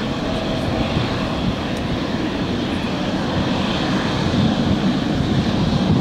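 Boeing 777-300ER's twin GE90 turbofans at takeoff thrust during the takeoff roll, a steady low roar that grows slightly louder in the last seconds as the airliner lifts off.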